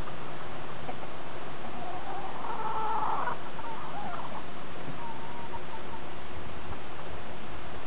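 Rooster crowing once, about two seconds in: a rising call that holds for about a second. A few short, softer notes follow.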